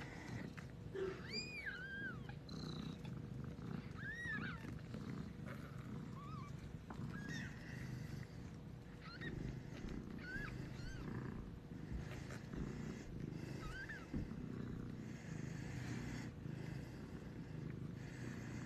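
Siberian mother cat purring steadily, with her newborn kittens giving thin, high mews every second or two, each rising and falling in pitch.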